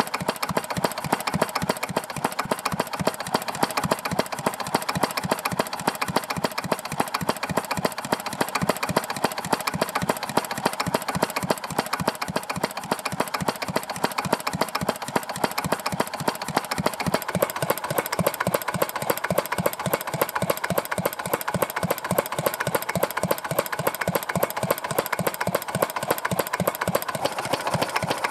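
Old Yanmar single-cylinder stationary diesel engine with spoked flywheels, running steadily at idle with an even, rapid knocking beat of its firing strokes. It has just had an oil change, and its owner reckons it runs so-so.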